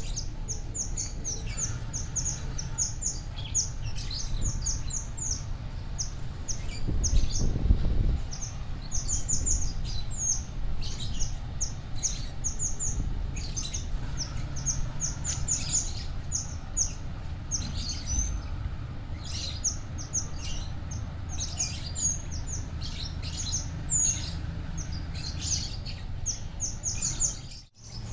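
Birds chirping rapidly and continuously, high-pitched, over the steady low rumble of a diesel locomotive moving a coach slowly along the track. The rumble swells briefly about seven seconds in.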